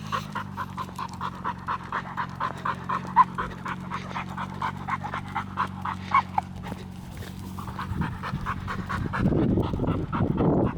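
A pit bull panting quickly and steadily, about four breaths a second, with a couple of short high whines. A louder rushing noise comes in near the end.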